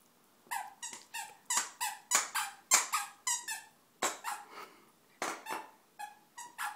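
Squeaker in a plush dog toy squeaked over and over as a Bedlington terrier bites down on it: about twenty short, sharp squeaks, roughly three a second, with a brief pause near the middle.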